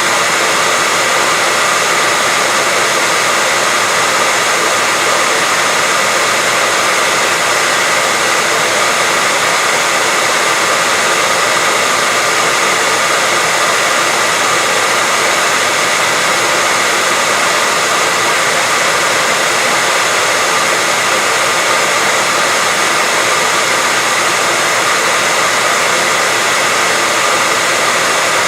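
Continuous white noise: a loud, unchanging hiss with little bass, and a faint steady tone near 2 kHz within it.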